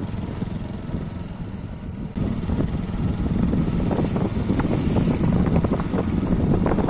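Two-wheeler's engine running as it rides along, with wind rushing over the microphone. The sound gets louder about two seconds in, and a few short knocks come in the second half.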